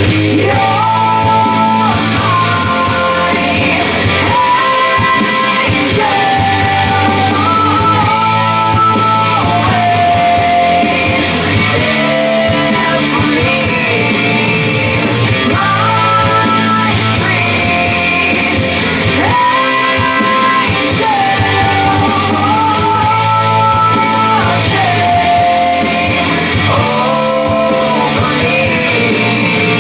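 Rock song with guitars and a melody of long held, sliding notes over a steady bass, played from CD through a repaired Dyna PAS preamp and a Hitachi amplifier.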